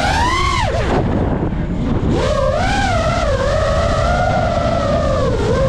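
Electric motors and propellers of an FPV radio-controlled aircraft whining, the pitch rising and falling with the throttle over a steady rush of wind and prop wash. The whine drops away about a second in, then climbs back and wavers, dipping again near the end.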